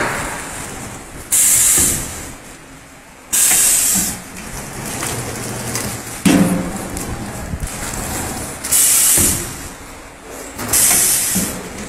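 Horizontal flow-wrapping machine running while it packs frozen chicken, with four loud, short bursts of hissing, each under a second, and a low thud about six seconds in.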